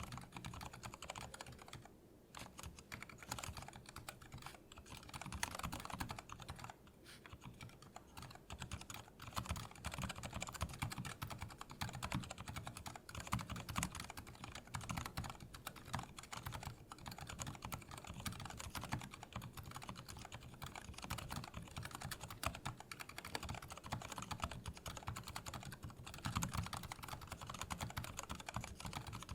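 Continuous fast typing on a Lily58 Pro split mechanical keyboard with Cherry MX Silent Red linear switches in a 3D-printed case: soft, damped keystrokes, with short pauses about two seconds in and again near seven seconds.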